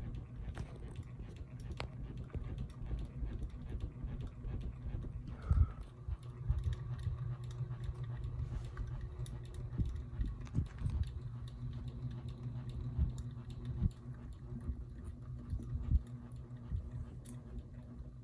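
Ceiling fan running with a steady low hum and irregular ticking and knocking, the loudest knock about five and a half seconds in. This is the intermittent fan noise being traced for repair.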